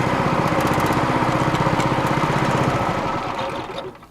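Outboard boat motor running steadily, then shut off about three seconds in, its sound dying away over the last second.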